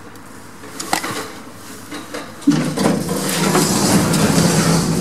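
Lift machinery in the shaft: a few clicks, then a sudden clunk about two and a half seconds in as it starts up, followed by a steady electric motor hum with a noisy rattle over it.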